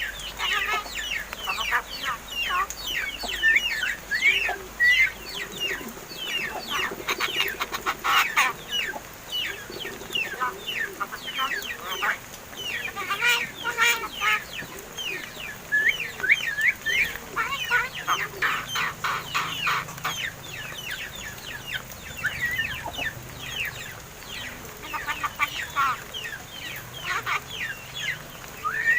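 Pet crested mynas (Martinez birds) chattering: a dense, rapid run of short squawks and chirps, thinning out a little past the middle.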